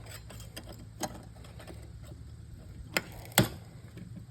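Sharp snaps and clicks of pliers cutting and pulling copper wires out of an old television: three distinct snaps, about a second in and twice close together near the end, the last the loudest, with faint rattling between.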